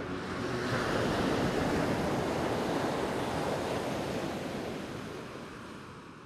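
The song's last notes die away, and a rushing, surf-like noise swells up. It is loudest for a couple of seconds, then fades out slowly.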